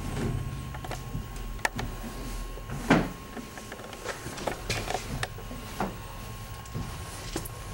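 A few scattered knocks and taps from carpenters fitting plywood panels to a porch ceiling, muffled through a closed window, the loudest about three seconds in, over a steady faint hum.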